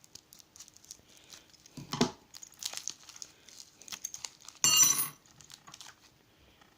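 Packaging being unwrapped by hand around a small Medeco lock: soft rustling and small clicks, with a sharper rustle about two seconds in and a louder half-second tear or crinkle near five seconds.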